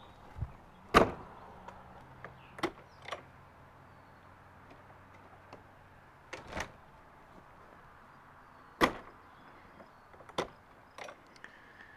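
Travel trailer's entry door and screen door being opened and shut: a series of sharp latch clicks and knocks, about eight in all, loudest about a second in and again near nine seconds. As the outer door shuts on the screen door, the screen door latches onto it, which is how the mechanism is meant to work.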